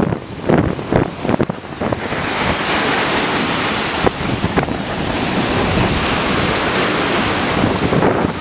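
Surf breaking and washing up a sandy beach, with wind buffeting the microphone in low gusts during the first two seconds. From about two seconds in, the surf settles into a steady hiss.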